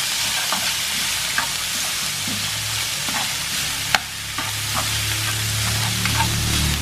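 Shredded chicken and hoa ban (Bauhinia) flowers sizzling in a nonstick frying pan as they are stir-fried with wooden chopsticks, which tap and click against the pan now and then, with one sharper knock about four seconds in.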